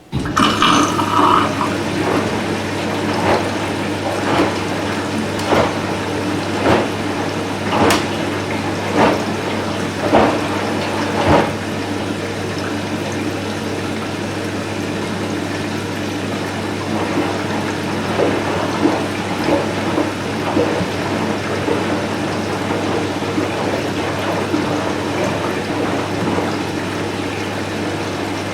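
Candy Smart Inverter washing machine taking in water: water rushing in starts suddenly, with a steady low hum underneath. A sharp tick comes about once a second for the first twelve seconds or so, then the rushing carries on steadily.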